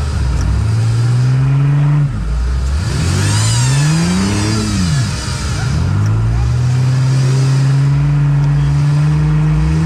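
An off-road sprint car's engine under hard throttle. The revs climb, cut off sharply about two seconds in, rise and fall again, then climb slowly and steadily through the rest.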